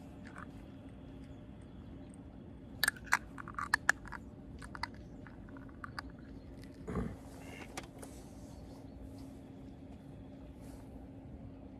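Small clicks and rattles of fishing tackle handled while a wafter bait goes onto the hook: a quick run of sharp clicks about three seconds in, a few more ticks, and a soft bump around seven seconds. A steady low hum runs underneath.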